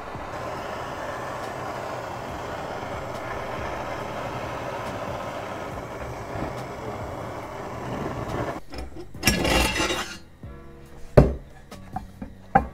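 MAP gas torches running with a steady roar, heating engine crankcases hot enough for main bearings to slide in; the roar stops about nine seconds in. A short loud rush follows, then two sharp knocks, the louder one about eleven seconds in.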